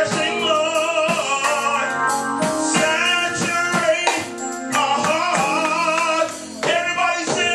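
Worship song with sung vocals over guitar and band accompaniment.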